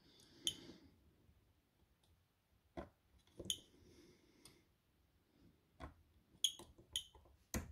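Handheld battery spot welder firing as nickel strip is welded onto replacement lithium-ion cells in a Milwaukee M18 pack: about seven sharp snaps at irregular gaps of half a second to two seconds. Two of them are followed by a brief high tone.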